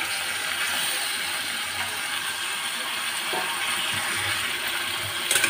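Raw chicken pieces sizzling as they land in hot oil and frying onions in a small pressure cooker: a steady crackling hiss. There is a brief knock near the end.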